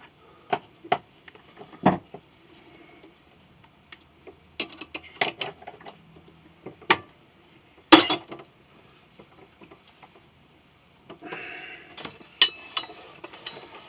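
Irregular knocks and clatter of hard objects, with one loud knock about eight seconds in and a short stretch of scraping near the end.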